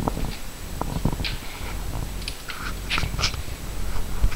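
Black German shepherd making short snuffling sounds close to the microphone, with a few soft knocks.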